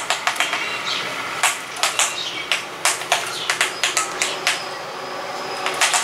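House sparrows pecking at a mirror: quick, irregular sharp taps of beaks on the glass, several a second, with a few short chirps among them.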